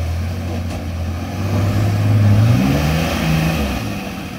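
Four-wheel-drive's engine working under load on a rough, dug-out track, its pitch rising about two seconds in as the throttle opens, then falling again.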